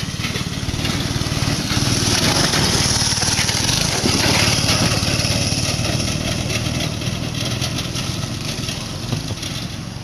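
Small 5 hp engine of a homemade ATV running steadily under load, growing louder about two seconds in and easing off over the last few seconds.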